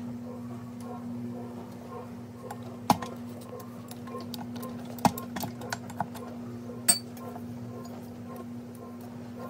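Stand mixer's stainless steel bowl and dough hook clinking a few times as the tilt-head is raised and the dough is handled. The clinks come about three seconds in, twice around five to six seconds, and once near seven seconds with a short metallic ring, over a steady low hum.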